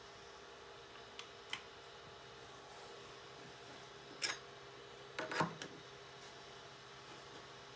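Light clicks and taps of a hand handling the 3D printer and its printed accessories: two faint ticks about a second in, a sharper click about four seconds in, and a short cluster of taps just after five seconds, over a faint steady hum.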